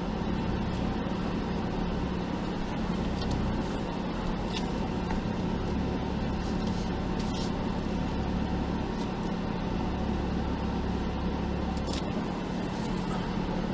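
Jeep engine running steadily at low revs while crawling slowly down over rocks, with a few faint clicks.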